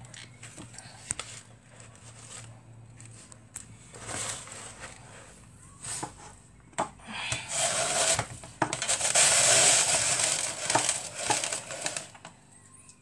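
Kitchen handling sounds at the counter: scattered light knocks and clinks of dishes and containers, then a louder, noisy stretch of rustling and clattering lasting about four seconds from about seven seconds in.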